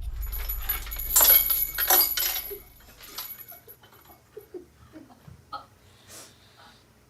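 Glass bottles and glassware clinking and clattering for about two seconds while a drink is mixed. Then comes a string of short, faint squeaks, each falling in pitch.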